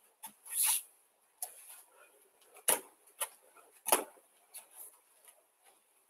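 Bare feet thudding on judo mats during hopping uchi-mata entries with a throwing dummy. The thuds are scattered and soft, the two loudest about halfway through and a second later, with faint scuffs and rustles between.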